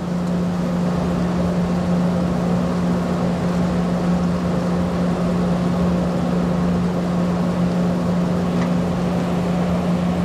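Hand-held lab gas burner's blue flame running steadily: an even rushing noise over a constant low hum.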